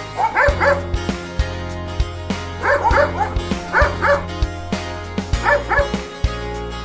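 Dog barking in quick groups of two or three, four times, over background music with a steady beat and bass.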